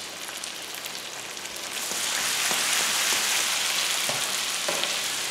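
Rice, chickpeas and spices sizzling as they toast in hot fat in a pan, the sizzle growing louder about two seconds in.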